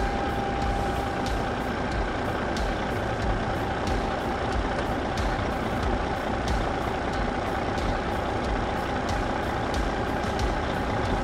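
Truck engine sound effect, of the kind a toy truck's sound module or a video edit plays: a steady diesel-like running rumble with a faint high whine and a light regular click about one and a half times a second.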